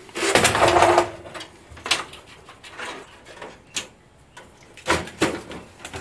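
A steel computer tower case being handled and its side panel slid off: a scraping rub about a second long near the start, then a few separate knocks and clicks.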